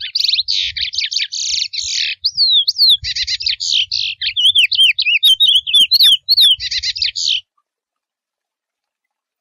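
Curió (chestnut-bellied seed-finch) singing a wild 'mateiro'-style song: quick swooping whistled notes alternate with harsher buzzy phrases. The song cuts off abruptly about seven and a half seconds in.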